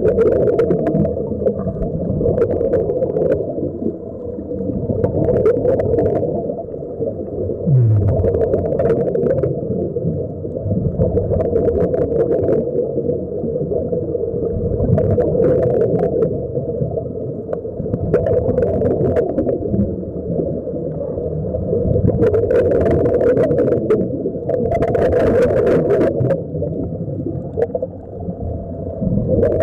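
Muffled underwater rushing recorded beneath the sea, broken every second or two by gurgling bursts of air bubbles escaping from sea-walker diving helmets.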